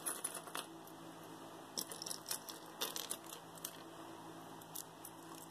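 Small metal earrings clinking and tapping as they are handled and sorted from a pile: scattered light clicks, a few close together about two to three seconds in.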